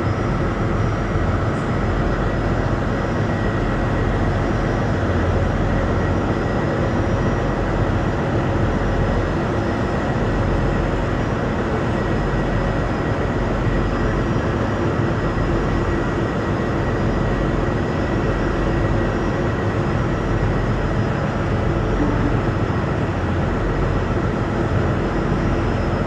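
Heavy machinery at a coal-ship harbour running with a steady, unbroken low drone and a few faint steady tones.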